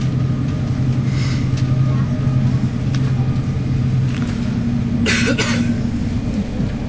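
ICE1 high-speed train running, heard from inside the passenger car: a steady rumble with a low hum that changes to a higher hum about four seconds in. A brief sharp burst of noise cuts in about five seconds in.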